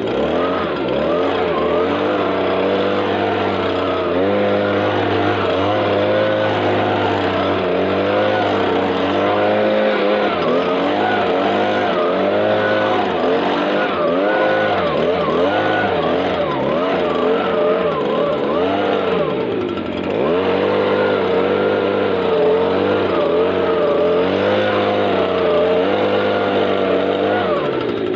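Small two-stroke engine, most likely the Stihl BG56 leaf blower's, running and being revved up and down over and over, with a brief drop about twenty seconds in.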